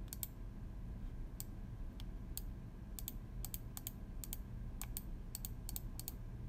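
Clicking at a computer: a string of sharp, light clicks at irregular times, many in quick pairs, busier from about halfway through.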